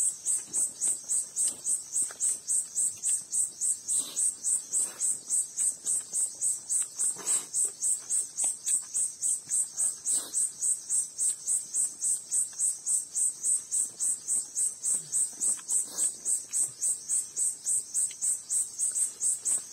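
An insect chirping steadily with a high-pitched, even pulse of about four chirps a second. A few faint clicks and taps can be heard underneath.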